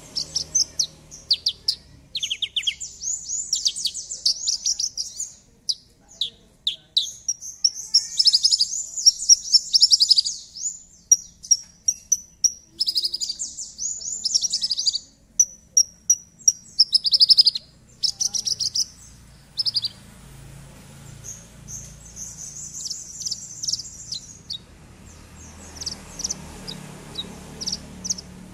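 Javan bush lark (Horsfield's bush lark) singing a long, varied song: runs of rapid high chirps and trills broken by short pauses, growing softer after about twenty seconds.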